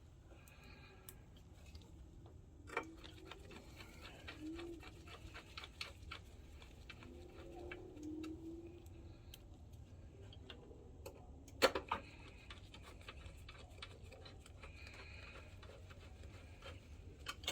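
Faint scattered clicks and taps of hand work on the projector's plastic and metal parts as screws are driven and the unit is handled, with a sharper knock about twelve seconds in.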